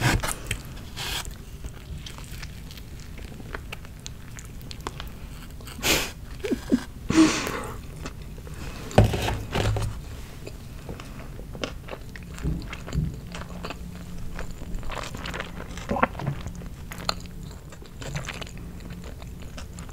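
Close-miked mouth sounds of a person eating: chewing and crunching food, with scattered sharp bites and smacks, the loudest about 9 seconds in.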